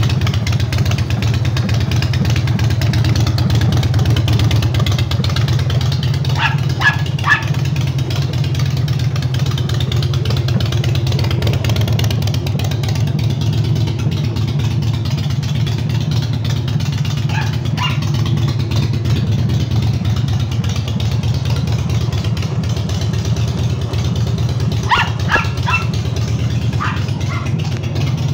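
Air-cooled motorcycle engine idling steadily. A dog barks in short bursts of two or three several times over it.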